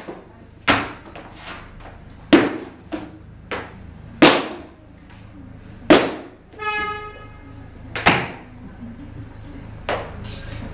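A series of about nine sharp knocks or bangs at uneven intervals, roughly one a second, each with a short ringing tail. About two-thirds of the way through there is a brief pitched sound.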